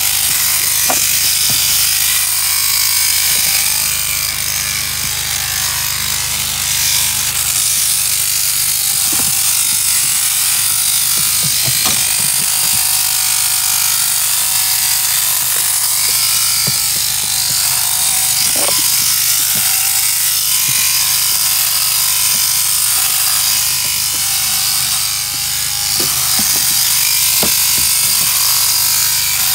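Sheep shearing handpiece running steadily, buzzing as it crutches wool from a merino's breech, with a few light clicks now and then.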